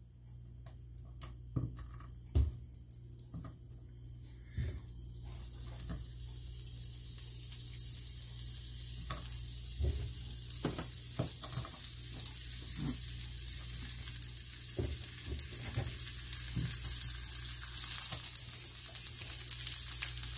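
Thin slices of pepperoni and salami frying in a hot non-stick pan. A few knocks come as slices are laid in, then a sizzle starts about five seconds in and grows steadily louder as the pan fills.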